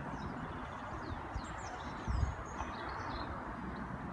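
Several small birds chirping and singing, short quick whistled notes and sweeps, over a steady background rush of outdoor noise, with a brief low thump about two seconds in.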